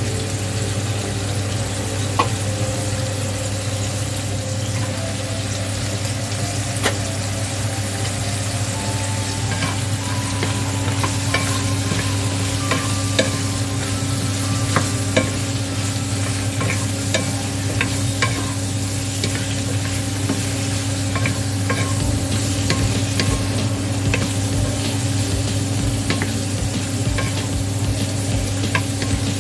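Cubed fish balls, garlic and sliced carrots sizzling in oil in a nonstick wok, stirred with a wooden spatula that taps and scrapes against the pan, the taps coming more often from about ten seconds in. A steady low hum runs underneath.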